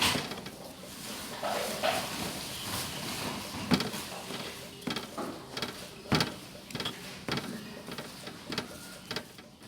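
A kitchen utensil scraping and knocking irregularly against a dish as salted egg yolks are mashed smooth by hand.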